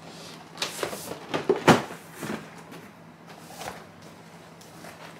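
Cardboard product boxes knocking and scraping against each other as one is pulled off a stacked pile: a cluster of knocks and rustling starting about half a second in, the loudest knock near two seconds, then a few fainter bumps.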